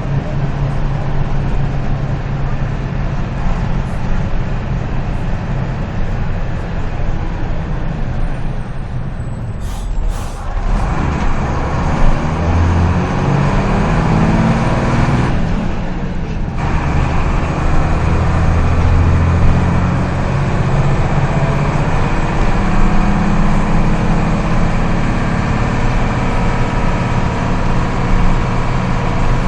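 Mercedes-Benz OF-1721 bus's front-mounted diesel engine running under way. A short sharp hiss comes about ten seconds in, the sound drops briefly around sixteen seconds as if between gears, and then the engine note pulls stronger again.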